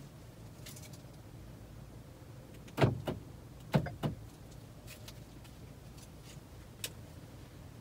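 Two pairs of sharp clunks about a second apart, then a few faint clicks, from the 2014 Ford Edge as its electrics come back on with the battery reconnected.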